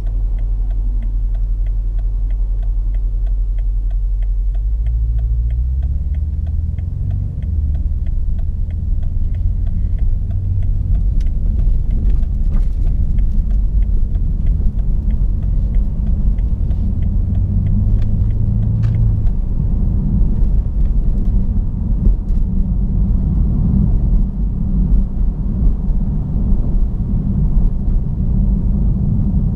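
BMW F90 M5's 4.4-litre twin-turbo V8 through a Capristo valved exhaust with the valves open. It idles steadily, rises in pitch as the car pulls away about five seconds in, then runs with a deep rumble in light city driving.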